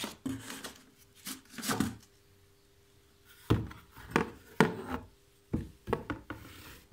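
Packaging being handled: cardboard and plastic wrap rustling, with the saw's parallel guide bar knocking and scraping against the box in a series of short bursts.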